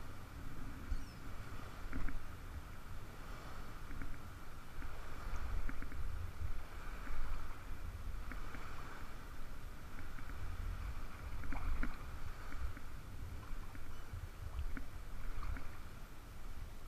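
Shallow bay water lapping and sloshing around a wading angler, rising and falling in uneven swells over a low rumble, with scattered small clicks.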